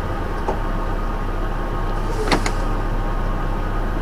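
Scammell S26 tractor unit's diesel engine running steadily, heard from inside its cab, with a faint click about half a second in and a short sharp sound a little over two seconds in.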